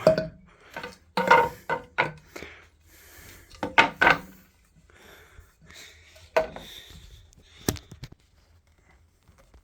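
Wooden bed parts being handled: a series of knocks, clatters and scraping rubs, which stop about eight seconds in.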